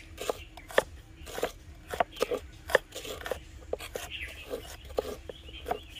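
Two kitchen knives slicing red onions and shallots on wooden cutting boards: irregular sharp knocks of the blades hitting the boards, about two or three a second, with the crunch of the onion being cut.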